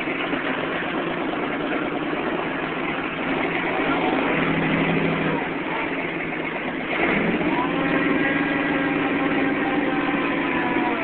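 Off-road vehicle engine running as it climbs a trail, rising in revs about seven seconds in and then holding the higher engine speed.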